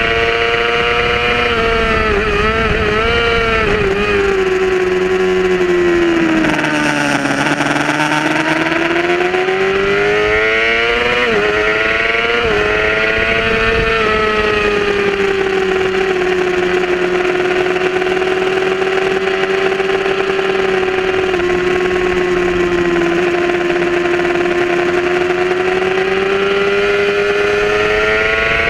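Sport bike's inline-four engine at racing revs. The revs drop with a few quick blips on downshifts as it slows for a corner, climb back with upshifts, then hold one long steady high note flat-out down a straight. Wind rush runs underneath.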